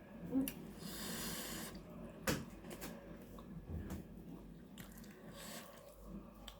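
Close-up eating sounds of a person at a meal: chewing, with a long airy slurp about a second in and a sharp click a couple of seconds in.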